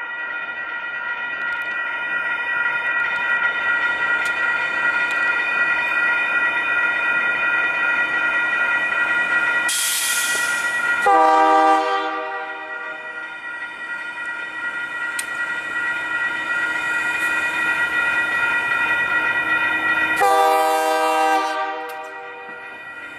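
Railroad crossing warning bell ringing steadily while an approaching EMD GP60 locomotive's horn sounds two blasts, a shorter one about 11 seconds in and a longer one about 20 seconds in. A brief hiss comes just before the first blast.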